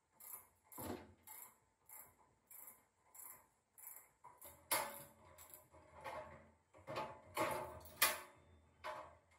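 Repeated strokes of hand-tool work on the motorcycle's parts, about one and a half a second, growing louder and less regular in the second half.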